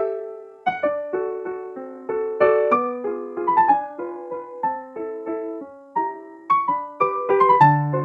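Background piano music: a slow melody of single notes and chords, each struck and fading, with a deeper bass chord near the end.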